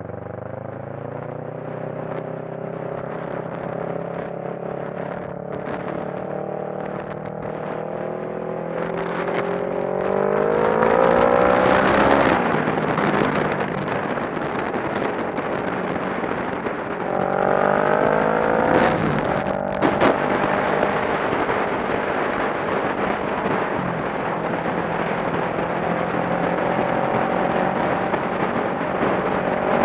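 Sport motorcycle engine accelerating through the gears, its pitch climbing and then dropping at two upshifts, the second sharper than the first. It then settles into a steady cruising note under rising wind rush.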